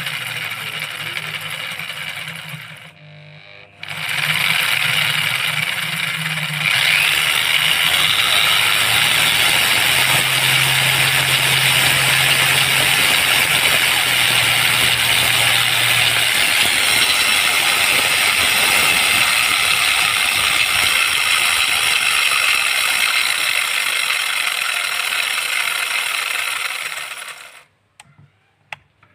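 Angle grinder fitted with a chainsaw attachment running on a homemade speed regulator. It drops almost to a stop about three seconds in and picks up again, runs louder from about seven seconds in, and cuts off shortly before the end.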